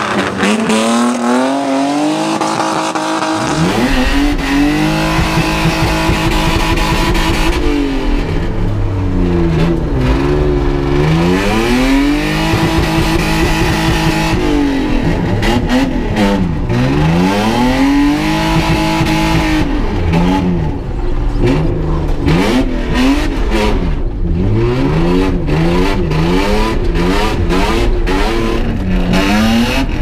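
BMW 525i (E34) straight-six engine driven hard, revving up and falling back again and again, rising and falling in pitch every couple of seconds. For most of it the sound is heard from inside the stripped cabin, with a deep rumble under the engine note.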